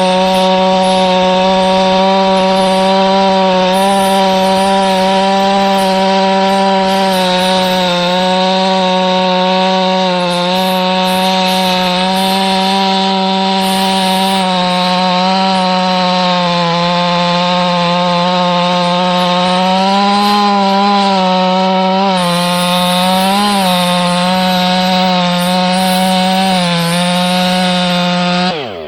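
Ported Stihl 500i fuel-injected two-stroke chainsaw at full throttle, cutting through wood. The engine holds a steady high pitch with small dips as it loads in the cut, and near the end the throttle is released and the engine note drops away.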